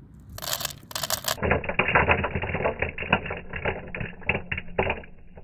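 Dry bean seeds trickling from a hand into the hopper of an EarthWay garden seeder: a dense, rapid clatter of small clicks that starts about a second and a half in and stops near the end. Two short rushes of noise come just before it.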